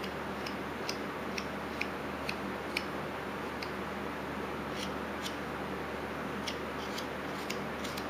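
Carving knife slicing small chips from a basswood carving: a short, sharp snick with each cut, about two a second with a few pauses. A steady low hum of room tone sits underneath.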